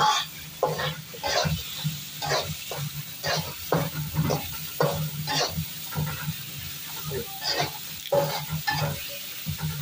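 Metal ladle scraping and stirring spice paste in a wok, about two to three strokes a second, over the sizzle of the paste cooking in oil and tamarind water.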